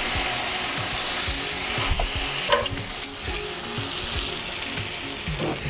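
Seared beef sizzling steadily in a hot pan on a gas burner as curry sauce is stirred through it, with small scrapes and clicks of the utensil.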